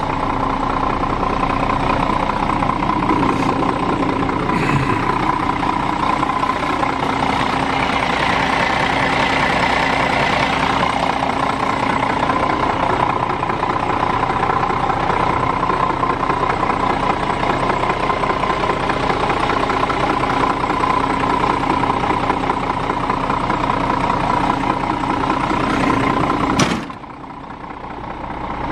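Scania R 410 Euro 6 truck's 13-litre inline-six diesel engine idling steadily. The sound drops abruptly near the end.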